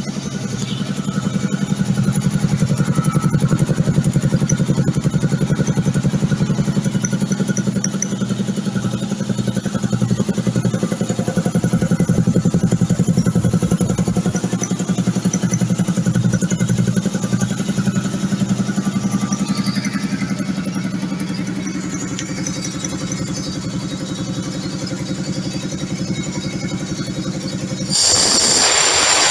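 Wayne 425-litre, 40 cfm air compressor running: its 10 hp electric motor drives the belt-driven two-cylinder piston pump with a steady, rhythmic pulse as it fills the tank. Near the end, a valve at the bottom of the tank is opened and compressed air rushes out with a sudden loud hiss.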